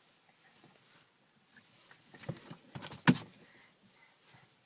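A few soft knocks and one sharp click about three seconds in, from things being handled inside a car's cabin.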